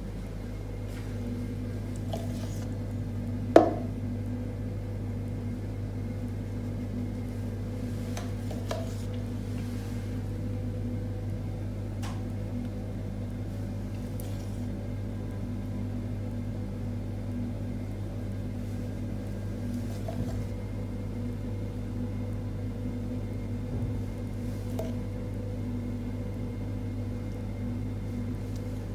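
Light clinks of a spoon against a glass bowl and china plates as hollandaise sauce is spooned over poached eggs, with one sharper clink about three and a half seconds in, over a steady low hum.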